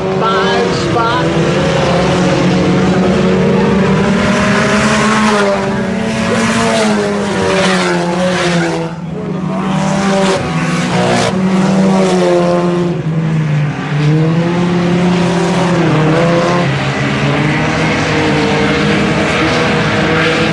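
A pack of IMCA Sport Compact race cars with four-cylinder engines running hard around a dirt oval, several engines heard at once, their pitch rising on the straights and falling as they lift for the turns, the sound fading briefly twice as the cars move away.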